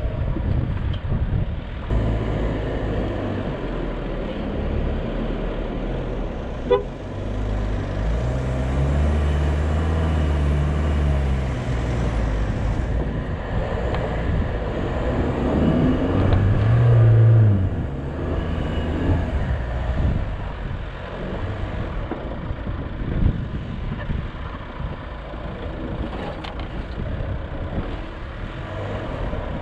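A 4x4's engine working hard through soft sand dunes, the revs rising and falling twice as it pushes through, with tyre and wind noise underneath and a single sharp knock about seven seconds in.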